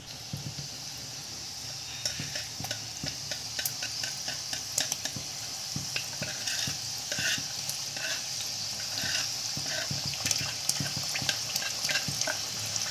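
Strips of maida dough for namak pare deep-frying in medium-hot oil in a steel wok. A steady sizzle, with crackling pops that grow busier from about two seconds in. This is freshly added dough in oil that is not yet very hot.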